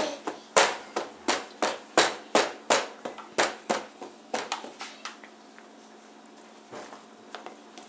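A toddler's hands slapping a plastic high-chair tray and the plastic dishes on it, about three slaps a second, dying away after about five seconds with a couple of faint pats near the end.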